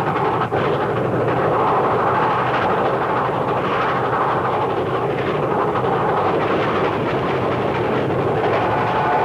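Disney's Engine No. 2, a steam locomotive, running steadily: a dense, even rolling-and-chuffing noise with a faint beat about once a second and no whistle sounding.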